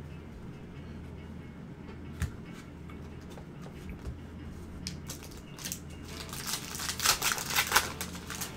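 Foil trading-card pack wrapper crinkling and being torn open in gloved hands for about two seconds near the end, after a single light click about two seconds in, over a low steady hum.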